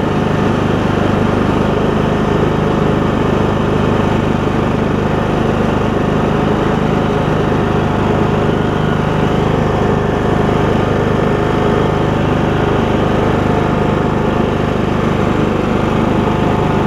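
Troy-Bilt Bronco lawn tractor's Kohler Courage engine running steadily as the tractor drives, with no knock.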